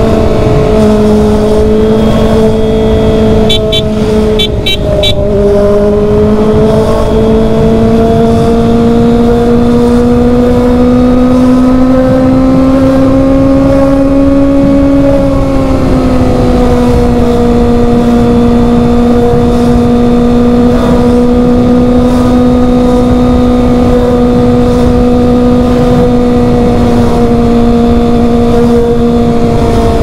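Kawasaki ZX-25R's 249 cc inline-four engine running through an SC-Project titanium exhaust at highway cruising speed, a steady high-pitched drone with wind rush. The pitch dips just after the start and again about five seconds in, climbs slowly as the bike speeds up, eases back about fifteen seconds in and then holds. A few short, sharp clicks come around four to five seconds in.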